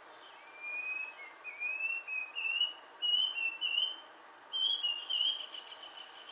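A run of short, clear whistled notes, each sliding slightly upward, the whole phrase climbing gradually in pitch over about five seconds, over a steady faint hiss.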